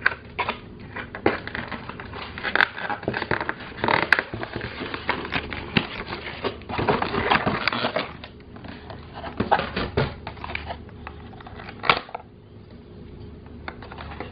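Cardboard and plastic toy packaging being handled and unpacked: rustling, scraping and clicking as a clear plastic tray of toy food bottles is worked loose and lifted out of its cardboard box. The handling is busiest in the middle and settles down near the end.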